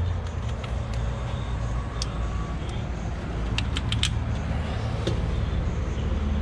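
Hand tools clicking and tapping against metal fittings in an engine bay, a few sharp clicks with a quick cluster about three and a half to four seconds in, over a steady low rumble.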